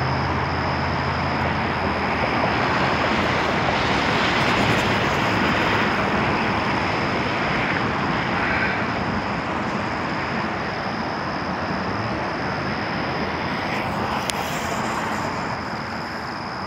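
Steady rushing outdoor noise with a thin, steady high tone, slowly fading near the end.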